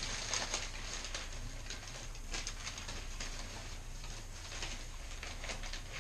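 Crumpled newspaper packing rustling and crinkling in a quick, irregular run of crackles as it is pulled out of a cardboard box and handled.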